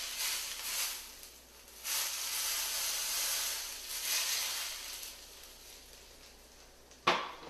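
Smoking-hot brown butter poured over a trout fillet topped with cold lemon juice and parsley, sizzling and crackling in two spells before dying away. This is the meunière effect: hot browned butter hitting the lemon juice and parsley. A short sharp knock comes near the end.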